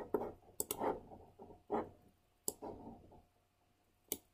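Faint computer mouse clicks, a few sharp ones spaced out, between soft scrapes of the mouse sliding across the desk as an object is dragged.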